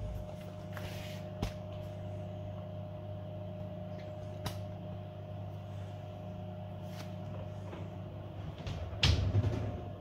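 Diplomat gas oven running with a steady hum, a few light ticks over it. About nine seconds in, the oven door shuts with a clunk.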